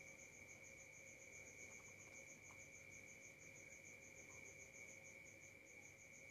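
Faint crickets chirping in a fast, even pulse of about eight chirps a second over a steady high tone; otherwise near silence.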